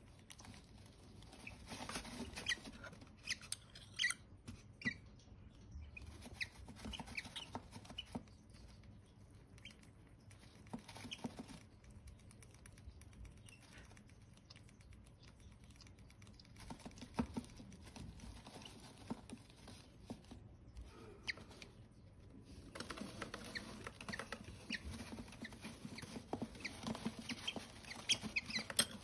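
Baby parrot chick being hand-fed from a spoon: faint, irregular little clicks and ticks of its beak working at the spoon as it takes the formula, growing busier near the end.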